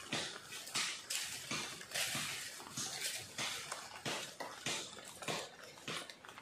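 A bolo (machete) chopping, a run of short, sharp blows at roughly two a second, irregularly spaced.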